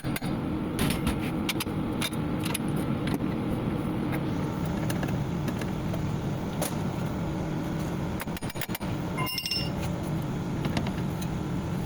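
Car running, a steady low hum with scattered light clicks and taps over it.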